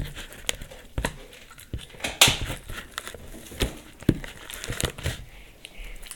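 Clear purple glue slime being squished and kneaded by hand in a plastic bowl, giving irregular crackling pops and squishes, the sharpest about two seconds in, as the last of the activator is worked in and it firms up.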